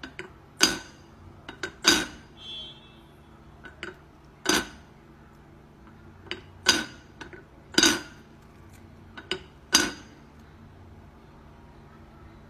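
A metal kettle lid clinking as a cat paws at it: about six sharp, ringing clinks at irregular intervals, with lighter taps between them.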